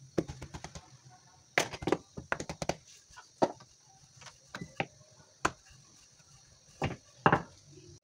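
Paratha dough being shaped by hand and rolled out with a wooden rolling pin on a stone countertop: irregular clusters of taps and knocks, with a few louder single knocks.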